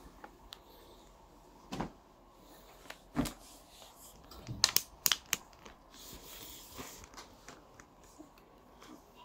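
Scattered soft knocks, rustles and a quick cluster of sharp clicks about halfway through, with a brief soft hiss after, as two macaques shift about on bedding.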